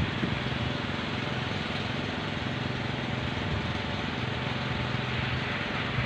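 Several kolecer, the Sundanese wooden propeller windmills on tall bamboo poles, spinning in strong wind and giving a steady low droning hum over the rush of the wind.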